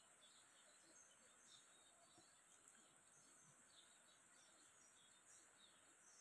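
Near silence: faint background hiss with a few faint chirps.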